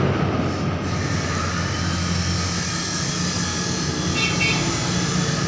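Steady low mechanical drone with a hum underneath, with a short high chirp about four seconds in.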